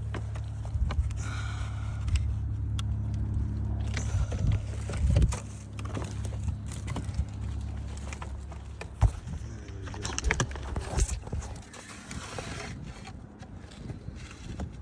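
Hand tools knocking and scraping against wood shakes and a roof fastener as the fastener under a shake is worked out, in scattered clicks and scrapes. A steady low rumble runs underneath and drops away about 11 seconds in.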